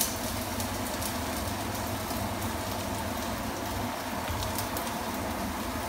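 Food sizzling in a pan on the stove: a steady hiss with faint crackles over a low hum.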